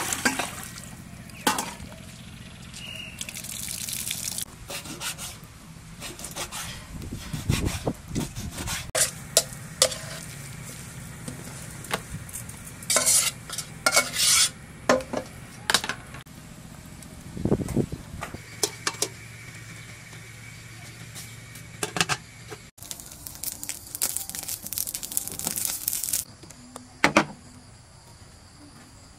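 Food preparation sounds: a string of irregular clinks and knocks from a metal pot and utensils, with food being stirred and handled.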